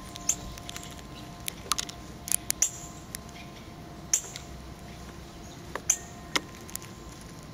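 Male northern cardinal cracking black sunflower seed hulls in its beak: irregular sharp clicks and cracks, about a dozen, some louder than others.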